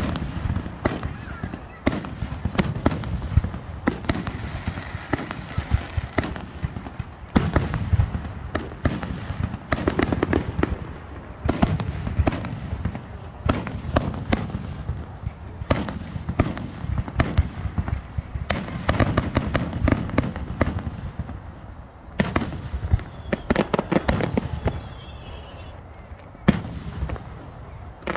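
Aerial fireworks shells launching and bursting overhead: a fast, irregular series of sharp bangs with no pause, some coming in quick clusters.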